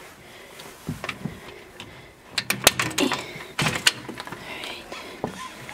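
Clicks and rattles of a storm door's handle and latch as the door is worked open, with a quick run of sharp clicks and knocks in the middle.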